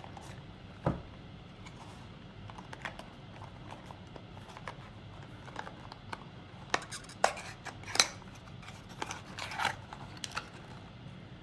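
Cardboard packaging being handled: a thump about a second in, then scattered taps, scrapes and rustles as a small cardboard accessory box is opened and a bagged cable is slid out, with the loudest clicks in the second half.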